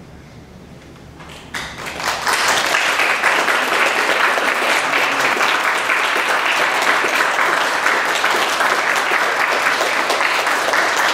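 Audience applauding, breaking out suddenly about one and a half seconds in and then keeping up steadily.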